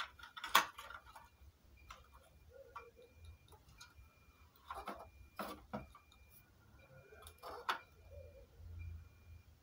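A few sharp plastic knocks and taps as a home theatre's display circuit board is handled in its opened plastic case, over a faint short high beep repeating about once a second.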